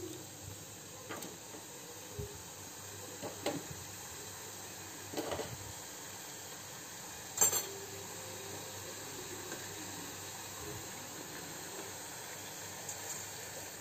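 Hot oil sizzling steadily around strips of gram-flour fafda dough as they deep-fry in a pan. A few short clinks and knocks of a utensil against the pan break in, the sharpest about halfway through.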